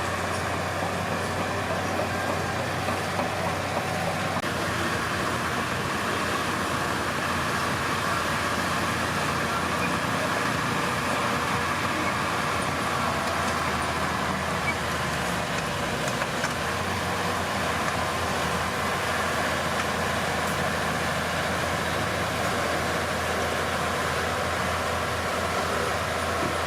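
Diesel engine of a Komatsu D31P bulldozer running steadily while it works.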